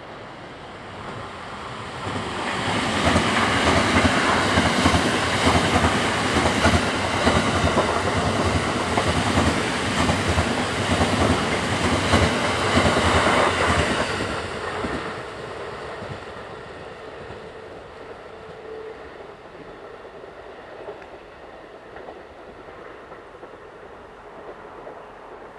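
JR West 683 series limited-express electric train passing at speed, its wheels rumbling and clattering on the rails. The sound swells as it approaches, stays loud for about eleven seconds as it goes by, then fades away.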